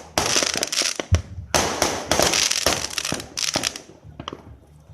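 Fireworks crackling: two long spells of dense, rapid pops that thin out to a few scattered cracks near the end.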